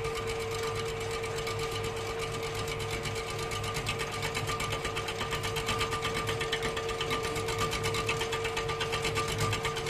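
Homemade lathe driven by a washing-machine motor, spinning a motorcycle piston in a 4-inch lathe chuck while the cutting tool faces the crown flat: a steady motor hum with a fast, even chatter from the cut.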